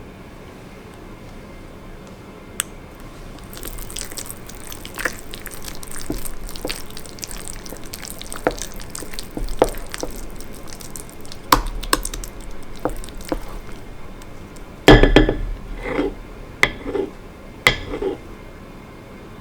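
Slime being handled: scattered sticky clicks and pops, then a run of louder squelches about fifteen seconds in and a few more near the end.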